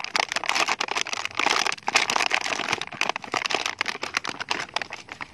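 Clear plastic toy packaging crinkling and crackling as a hand pulls it open, a dense, continuous run of crackles.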